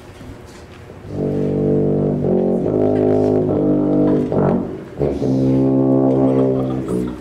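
Tuba playing a solo melody of sustained low notes, starting about a second in, pausing briefly after about four seconds, then going on with a second phrase.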